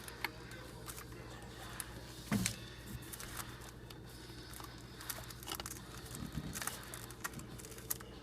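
Scattered small clicks and rubbing as spark plug wire boots are handled and pushed onto a distributor cap, over a steady low hum.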